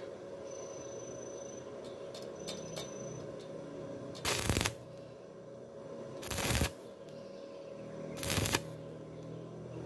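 Stick (MMA) welding arc on thin steel tubing, struck in three short crackling bursts of about half a second each, roughly two seconds apart. This is an on-off stitching of the arc, used to lay the weld without burning through thin metal.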